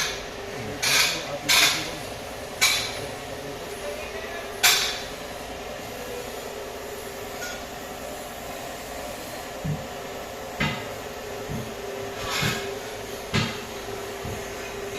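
Scattered metallic clanks and knocks of hand tools and parts being handled during engine work: four sharper clanks in the first five seconds, then softer knocks later on, over a steady hum.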